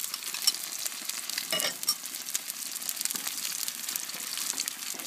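Vegetables with freshly added pea pods sizzling and crackling in a hot paella pan on a grill, with a brief louder noise about one and a half seconds in.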